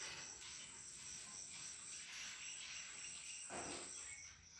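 Crickets chirping in a steady, high pulsing trill on a night outdoors. A short bump breaks in about three and a half seconds in.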